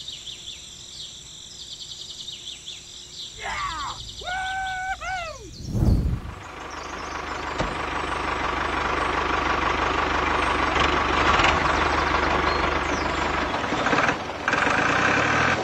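Birds chirping, then a loud thump about six seconds in. A toy tractor's small electric motor then starts running with a whine and rattle that grows louder and holds steady.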